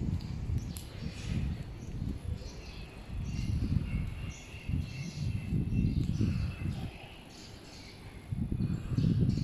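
Outdoor street ambience: birds chirping and a steady high-pitched insect trill, over irregular bursts of low rumbling.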